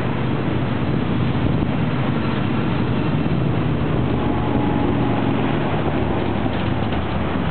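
Two NR class diesel-electric locomotives hauling a passenger train pass close by, their engines giving a steady low drone, with the carriages' wheels running on the rails as the train goes by.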